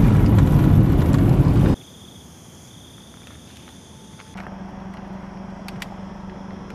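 Loud rushing road and wind noise inside a moving car for nearly two seconds, cutting off abruptly. Then quieter background with a faint steady high tone, and from about four seconds in a steady low hum with a couple of sharp clicks.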